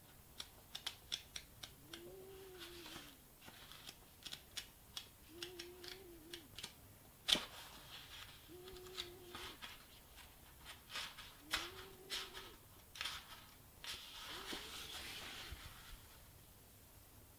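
Pages of a paper-bound 1924 book being leafed through by hand: quick crisp paper flicks and rustles, with one sharp snap about seven seconds in. A faint low hum-like tone comes and goes about every three seconds.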